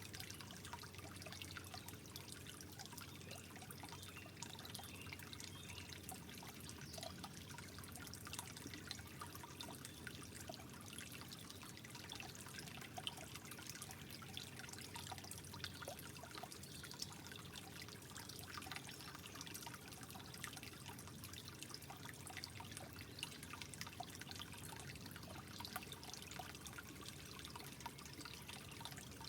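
Water trickling steadily and softly, with many small drips and splashes scattered through it.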